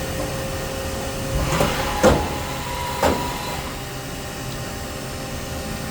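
Haas SL30T CNC lathe running through its program: a steady machine hum with a thin whine that stops about a second and a half in, then three sharp clunks over the next second and a half while a higher whine comes in briefly.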